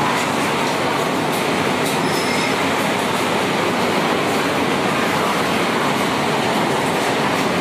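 Heavy rain pouring in strong wind, a steady, even rush of noise.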